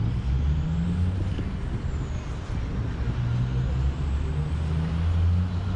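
Street traffic: motor vehicle engines running close by, a steady low hum with a faint hiss of tyres above it.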